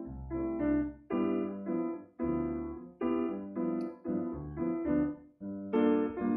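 Solo piano music: chords struck about twice a second, each fading before the next.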